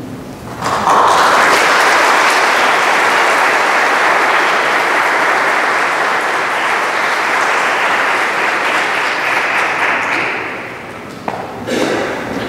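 Audience applauding, starting sharply about a second in, holding steady and fading away near the end. A few footsteps follow.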